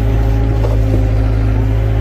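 Excavator's diesel engine running at a steady speed, with a constant low drone and a few faint knocks about two-thirds of a second in.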